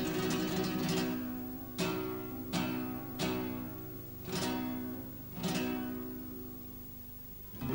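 Solo acoustic guitar music: a quick flurry of strummed chords, then single chords struck about a second apart, each left to ring and fade.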